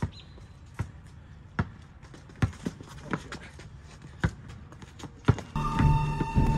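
A basketball being dribbled on an asphalt court: sharp single bounces a little under a second apart. About five and a half seconds in, music comes in loudly over it.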